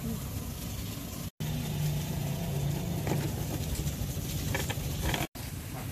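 Street traffic with a vehicle engine running: a steady low hum that is strongest in the first half, over a general rumble. The sound drops out completely twice, briefly.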